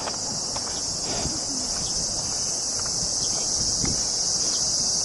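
A steady insect chorus, a continuous high-pitched buzz that neither breaks nor changes, over a faint low background hum.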